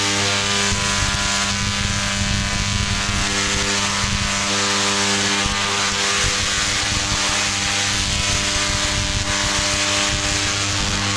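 Tesla coil firing: electric sparks arcing from its top electrode make a loud, steady crackling buzz over a deep hum.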